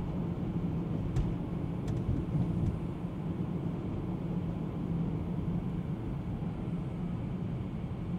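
Tyre and road noise inside the cabin of a moving 2024 Tesla Model 3 Performance, an electric car: a steady low rumble, with a few faint clicks in the first few seconds.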